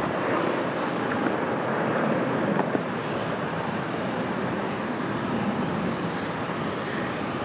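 Jet engines of a Jet2 Boeing 737 at take-off thrust as the airliner climbs away after lift-off: a steady, even noise with no distinct events.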